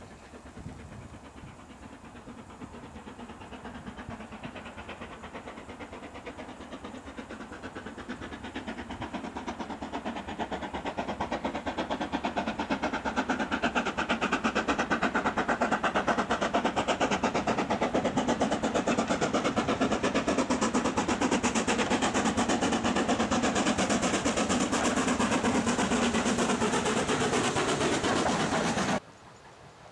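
BR Standard Class 4 tank steam locomotive No. 80072 working hard with a train of coaches, its rapid exhaust beats growing louder as it approaches and passes, followed by the steady clatter of the coaches' wheels on the rails. The sound cuts off suddenly near the end.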